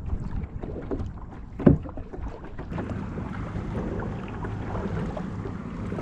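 Kayak paddle strokes: the double-bladed paddle dipping and splashing in the water, with irregular knocks and one louder thump a little under two seconds in. A steady low hum sets in about halfway through, with wind on the microphone.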